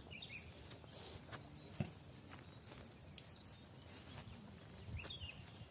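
Faint outdoor ambience with a few short bird chirps, one just after the start and one about five seconds in, and scattered small clicks.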